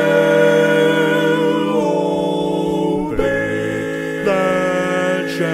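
Men's gospel quartet singing a cappella in close harmony, holding long sustained chords that change about three times.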